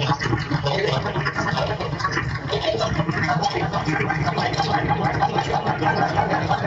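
Radio Specter ghost box sweeping the AM radio band at a very fast setting: choppy, rapidly flickering static with brief snatches of broadcast sound, steady throughout.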